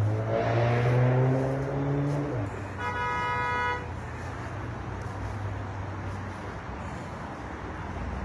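Slow parkway traffic passing, with a heavy vehicle's low engine note rising slightly over the first two seconds. About three seconds in, a car horn honks once for about a second, followed by steady road noise.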